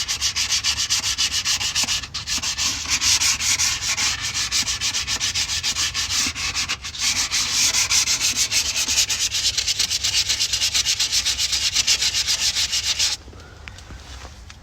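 Sandpaper rubbed by hand in rapid back-and-forth strokes over the metal gasket surface of a differential, scouring off old RTV silicone. The strokes pause briefly twice and stop shortly before the end.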